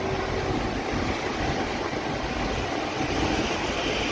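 Steady rushing noise of wind buffeting the microphone, mixed with road and traffic noise, recorded from a moving open vehicle.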